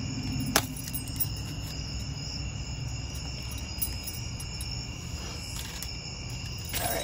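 Crickets trilling steadily in a continuous high chorus over a low background rumble, with one sharp click about half a second in.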